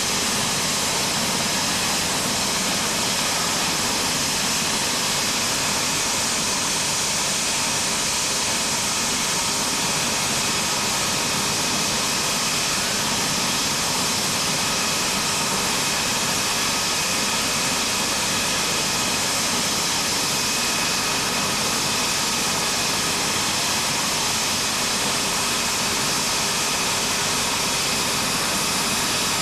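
Rescue helicopter running on the ground before lift-off, its rotor turning: a steady turbine whine over the rush of the rotor, unchanging throughout.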